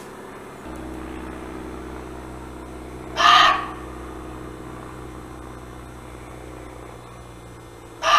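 Muntjac (barking deer) giving two short, sharp barks, one about three seconds in and another at the very end, over a low steady hum.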